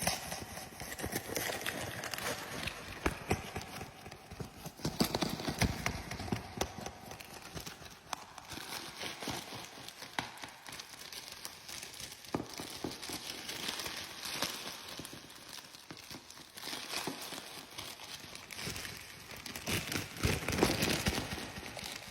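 Packaging being handled and opened: irregular tapping, knocking and crinkling of cardboard and plastic, busiest about five seconds in and again near the end.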